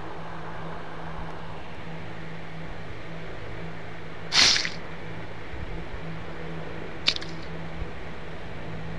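A short, wet squelch about four and a half seconds in, the added sound effect for tweezers pulling a maggot out of a sore on the skin, over a steady hiss and low hum. A faint click follows at about seven seconds.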